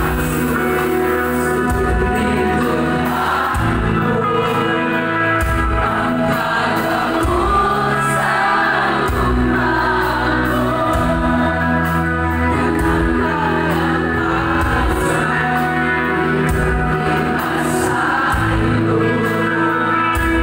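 Live Christian worship band playing a Cebuano-language praise song: sung vocals over electric guitars, bass and drums, with many voices singing together.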